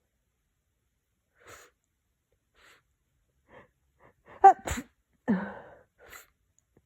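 A person with a cold sneezing: a few faint short breaths, then a loud sharp sneeze about four and a half seconds in, followed closely by a second loud voiced burst.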